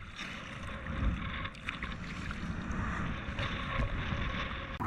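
Water sloshing and splashing against an inflatable dinghy's hull as a diver moves at the surface beside it, with wind rumbling on the microphone.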